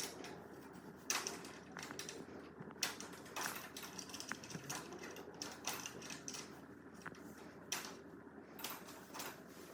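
Irregular metal clicks and taps as a podium stabiliser is wrapped around the frame and its nut is screwed in.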